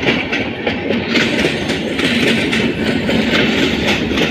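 Intercity passenger train coaches rolling past at close range: a steady rumble of wheels on rail, with repeated clicks and clatters as the bogies pass over the rail joints.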